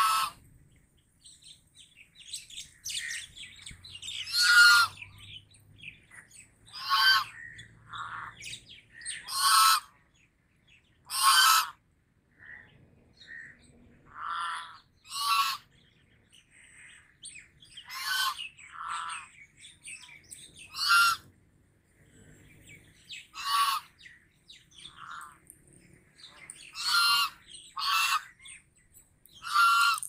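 White domestic geese honking: short calls every one to three seconds, some coming in quick pairs, from more than one bird.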